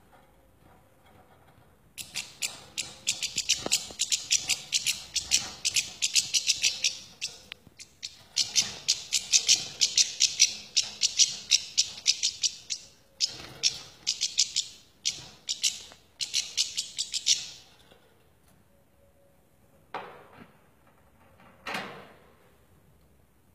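European goldfinch singing a fast, twittering song of rapid high notes for about fifteen seconds before it stops. Two short, separate sounds follow about two seconds apart near the end.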